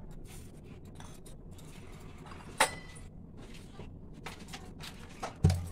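Salt being spooned into a steel mixer-grinder jar of tomato, coriander and green chillies: light rustling, one sharp clink with a short ring about two and a half seconds in, and a dull thump near the end.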